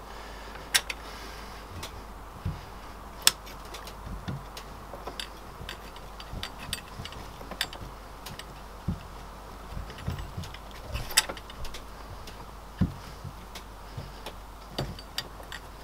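Irregular light metallic clicks and knocks as a VW Beetle crankshaft assembly, with its bearings and timing gear, is turned and worked into place in the bare engine crankcase half. The louder knocks come about a second in, at three seconds, and twice near the end.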